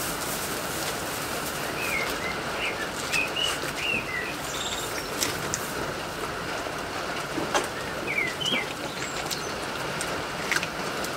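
Small birds chirping in short bursts a few times over a steady hiss of rain on a corrugated metal roof, with scattered light taps.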